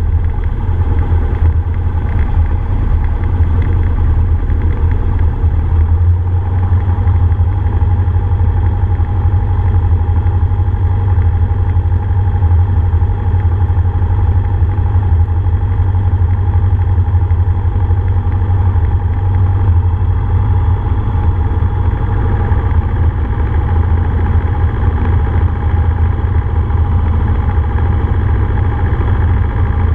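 Cessna F150L's four-cylinder Continental O-200 engine and propeller in flight, running steadily at an even pitch.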